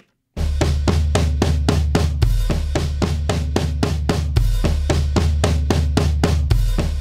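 Recorded drum kit groove playing back through a stereo compressor plugin: kick, snare, toms and cymbals in a steady beat, starting about a third of a second in. The compressor's stereo link is being switched. When it is unlinked, each side compresses on its own, so the snare drifts toward the left and the stereo image goes lopsided.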